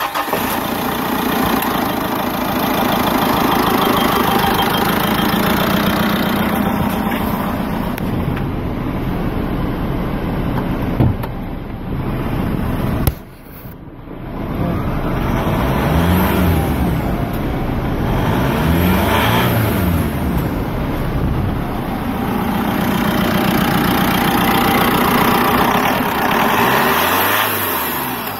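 2011 Mitsubishi Challenger's engine running at idle, then revved up and let fall back several times in the second half.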